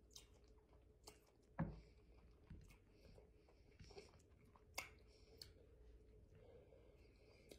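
Faint chewing of a person eating cherries and banana slices, with a few scattered soft clicks, the loudest about a second and a half in.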